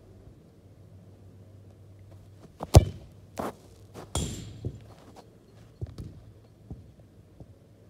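A football kicked hard off artificial turf close by: one sharp, loud thud, followed by several lighter knocks and thuds over the next few seconds.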